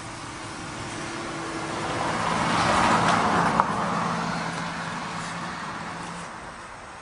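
A road vehicle passing by, its tyre and engine noise swelling to a peak about three seconds in and then fading away. A single short sharp crack sounds near the peak.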